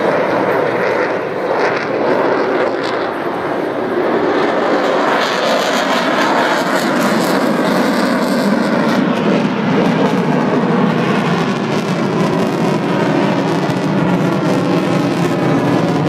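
Jet engine noise of an F-22 Raptor fighter, its twin Pratt & Whitney F119 turbofans, as it flies overhead. The noise is loud and steady, and grows brighter and fuller about five seconds in.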